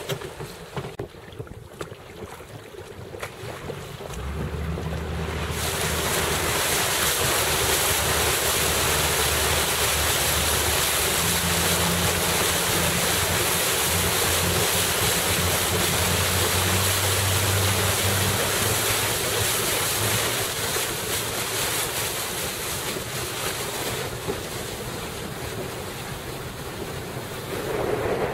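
Wind on the microphone and water rushing past a moving boat, with a low, steady engine hum coming in about four seconds in. The rush grows loud and even from about six seconds and eases near the end.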